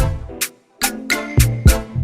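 Background music with a steady drum beat and bass, briefly dropping out about half a second in.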